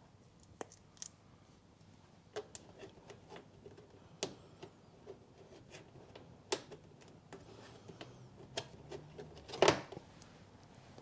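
Scattered clicks and knocks of plastic wheel arch liner fittings being handled and pushed into place, with a louder knock near the end.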